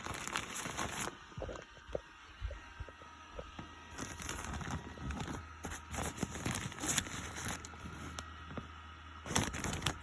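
Irregular rustling and crinkling of packaging being handled, with scattered clicks and light knocks.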